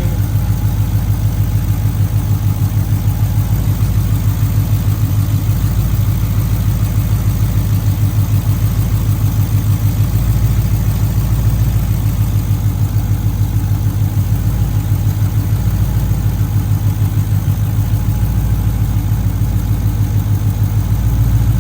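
Cammed Ford Crown Victoria 4.6-litre V8 idling, with a steady, even pulsing beat.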